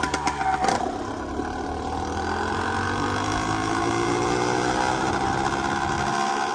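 Minarelli two-stroke engine on a motorized bicycle running, its Mikuni VM20 carburettor newly jetted down to a 135 main jet. After a clattery first second, the engine note climbs slowly for a few seconds and then holds steady.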